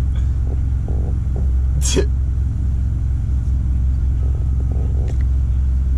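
Steady low rumble of a car's engine and road noise heard from inside the cabin, with a brief sharp rustle about two seconds in.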